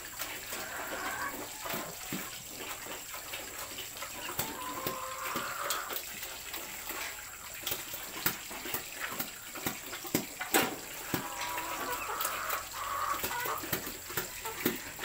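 Chickens clucking now and then over a steady background hiss, with scattered sharp clicks and knocks, the loudest about ten and a half seconds in.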